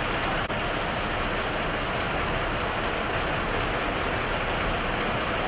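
A motorboat engine running steadily under a constant rushing noise.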